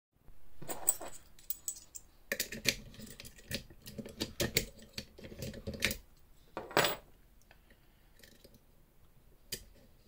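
Small metal lock-picking tools, a hook pick and a tensioning wire, clinking and rattling as they are picked up from among other metal tools on the bench. The sound is a run of sharp metallic clicks and jingles. It is loudest about a second in and again just before the seventh second, then goes quieter, with one last click near the end.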